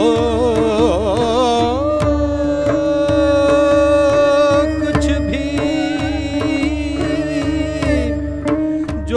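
Carnatic-style music: a male voice and an erhu carry the melody, with wavy ornamented notes at first and then long held notes, over a steady drone note and regular mridangam strokes.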